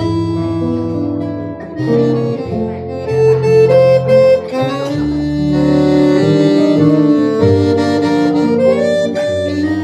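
Live jazz band playing an instrumental passage: held melody notes and chords over a bass line that moves from note to note.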